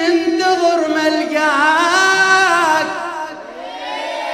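Arabic devotional chanting by male reciters: a melodic vocal line over a held low note, without instruments. It dips briefly about three and a half seconds in, then the held note carries on.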